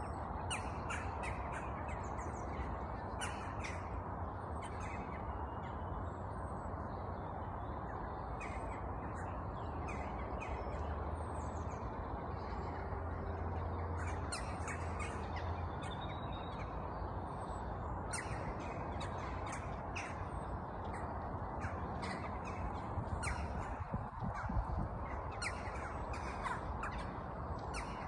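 Crows cawing again and again, short sharp calls scattered throughout, over a steady outdoor background rush.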